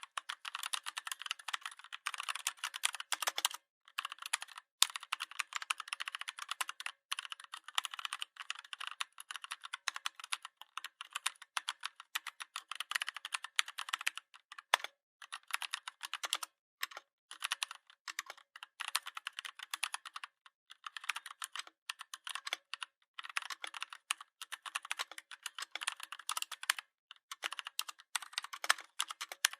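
Computer keyboard typing: runs of rapid key clicks with a few short pauses between bursts.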